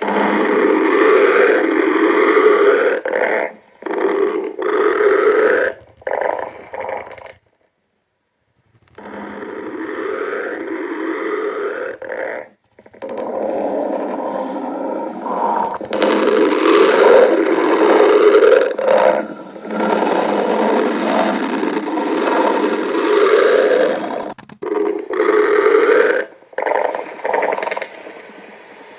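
Loud, long stomach growling in rough rumbling stretches that start and stop abruptly, with about a second and a half of silence around eight seconds in.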